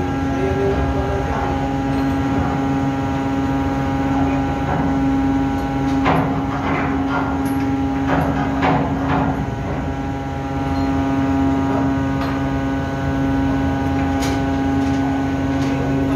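Steady drone of a ship's running machinery, a constant hum with several pitched overtones. Over it, a burst of metallic clanks and knocks around the middle and one sharp clank near the end, from the anchor chain being worked by hand in the chain locker.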